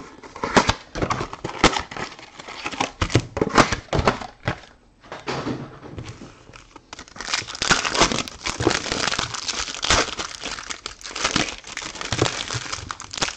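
Trading-card pack wrappers crinkling and clicking as sealed packs are handled and laid down on a table, then a wrapper crinkling as a pack is opened. There is a brief lull about five seconds in, and the crinkling grows denser after it.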